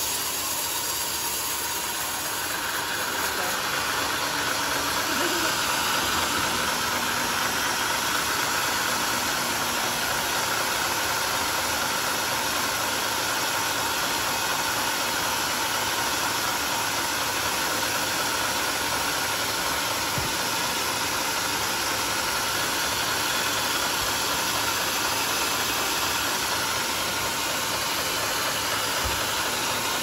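Band sawmill running with a steady, unbroken mechanical noise.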